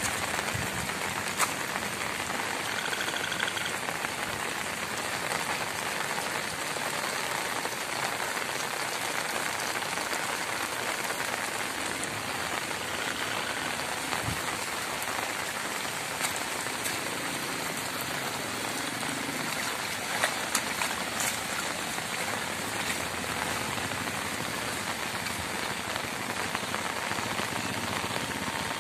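Heavy rain falling steadily on a flooded road and wet ground: a dense, even hiss with a few sharper taps of single drops.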